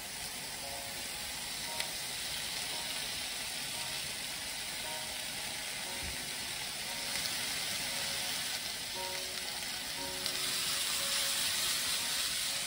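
Chicken breast pieces frying in a nonstick pan with a steady sizzle as sautéed carrots and mushrooms are added, growing a little louder near the end.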